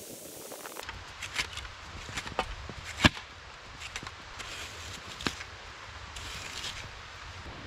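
Plastic snow shovel scraping and scooping snow down to the ground, with footsteps crunching in the snow. A few sharp knocks from the blade striking the ground, the loudest about three seconds in.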